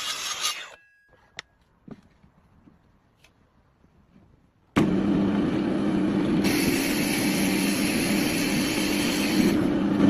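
A wood lathe running with a turning tool cutting the spinning wood: a steady motor hum under a hiss of shavings. It stops under a second in, leaving a few faint clicks, then starts again abruptly about five seconds in, with the cutting hiss stronger for a few seconds in the middle.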